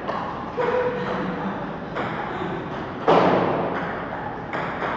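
Table tennis rally: the ball clicks off paddles and bounces on the table in a quick irregular run of hits, each with a short echo. The loudest is a thump about three seconds in.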